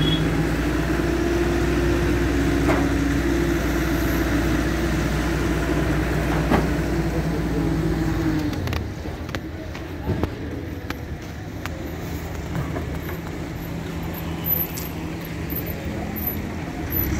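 A heavy vehicle's engine running steadily at idle. About eight and a half seconds in it drops away to a fainter hum, with scattered light clicks.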